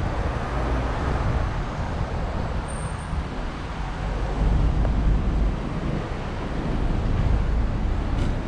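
Street traffic noise with a heavy, continuous low rumble, rising and falling a little, and a brief high squeak about three seconds in.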